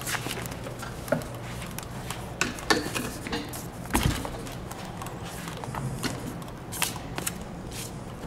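Handling noise from a Grammer MSG65 suspension seat: scattered clicks, rattles and knocks of its plastic and metal parts as it is turned over by hand, with a heavier thump about four seconds in as the seat is shifted on the cart.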